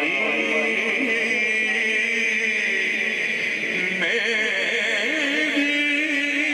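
A man singing a naat (Urdu-Punjabi devotional poem in praise of the Prophet) unaccompanied into a microphone over loudspeakers, drawing out long held notes with slow bends in pitch.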